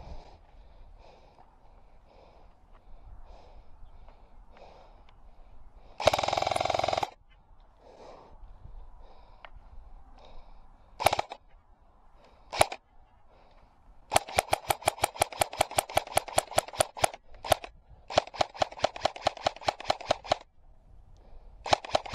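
Airsoft guns firing: a loud burst of about a second of full-auto fire, two single shots, then long runs of rapid, evenly spaced shots, each lasting two to three seconds. Faint ticking underneath in the first few seconds.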